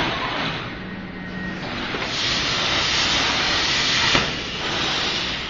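CNC plasma cutter torch hissing as it cuts, louder for a couple of seconds in the middle, then cut off by a sharp click.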